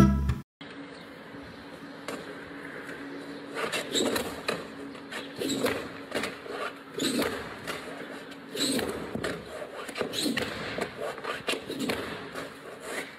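A rug being shaken out of an upper-floor window, flapping in sharp snaps about every second and a half over low street background.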